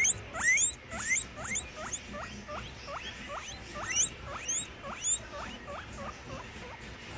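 Guinea pigs wheeking: a rapid series of short rising whistles, about three a second, loud at first and growing softer and shorter toward the end.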